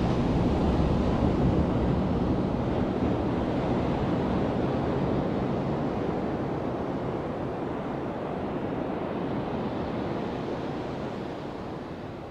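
Ocean surf on a sandy beach: the rushing noise of a breaking wave, slowly dying away as its wash spreads up the sand.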